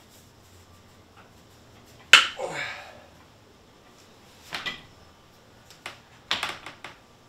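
Sharp snaps and clicks of a hand PEX crimping tool closing a clamp onto a brass fitting on PEX water line. The loudest snap comes about two seconds in, a single click follows about four and a half seconds in, and a quick cluster of clicks comes near the end.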